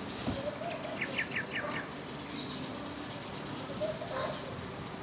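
A bird chirps a quick run of about five short high notes about a second in, over a steady background hiss.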